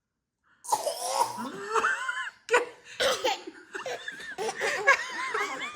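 Toddlers laughing and giggling, several voices at once, with a few deliberate, forced coughs among the laughs as part of a coughing game. It starts after a short silence, under a second in.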